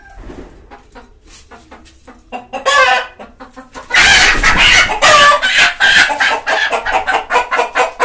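Desi hen squawking loudly in distress as it is grabbed and caught by hand, its wings flapping. After a short outburst a little before three seconds, the squawking becomes continuous from about four seconds in.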